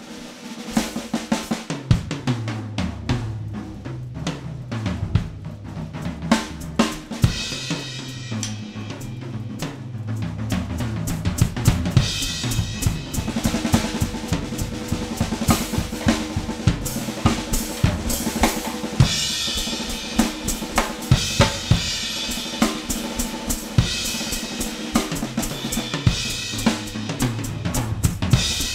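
Drum-kit music soundtrack: snare, bass drum and hi-hat playing a busy rhythm, with cymbal crashes swelling louder in several stretches from about halfway through.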